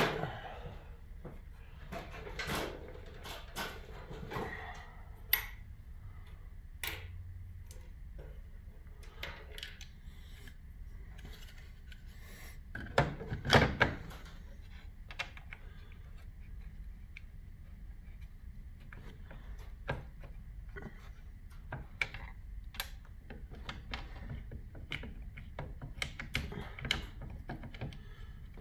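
Scattered clicks, taps and rubbing of a new plastic worm-gear housing being handled and pressed into place against a garage door opener's frame, with a louder cluster of knocks about halfway through.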